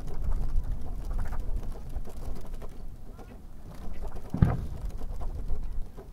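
Lull between fireworks shells: a low rumble with scattered faint pops as the last burst dies away, and a single dull thump about four and a half seconds in.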